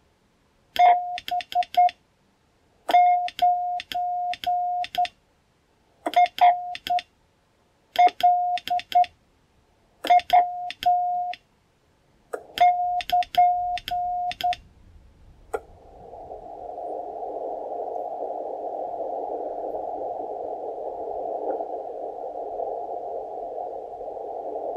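Morse code (CW) sent on a straight key and heard as the sidetone from a Tecsun PL-330 receiver: a single steady tone keyed in groups of short and long elements, with sharp clicks at the key-downs, where the receiver's AGC distorts briefly on the strong signal. About 15 seconds in the keying stops with a click, and the receiver's steady muffled hiss takes over as it listens for a reply.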